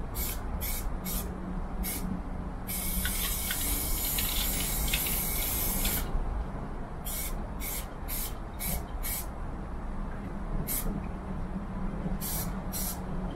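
Aerosol spray paint can hissing: several short squirts, then one long spray of about three seconds, then more short squirts.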